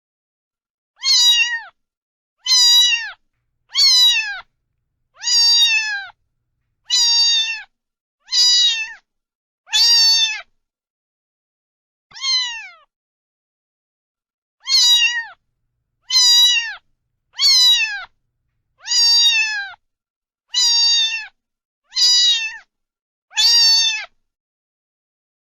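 A cat meowing over and over, about fifteen short meows a second or so apart, with a longer pause about halfway through. Each meow falls in pitch at its end.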